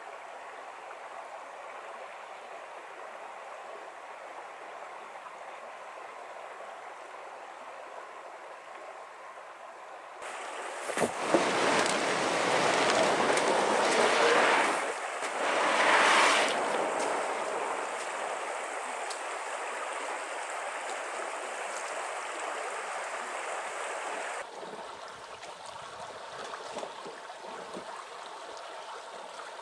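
Shallow river running over stones, a steady rush of water. It gets much louder for about fourteen seconds in the middle, swelling twice, with a single knock about eleven seconds in.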